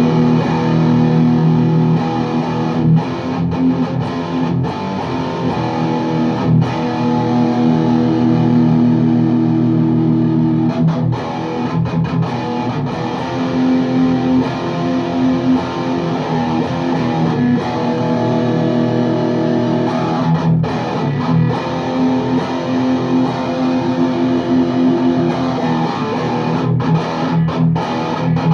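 Les Paul Custom electric guitar played through a VHT Deliverance D60 valve amp on high gain, heard through a miked 4x12 cabinet: distorted chords and riffs, mostly held with a few short breaks between phrases.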